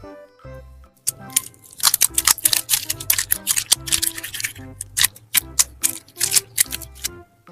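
Background music, with rapid, loud, crackly clicks and squelches of slime being worked by hand starting about a second in.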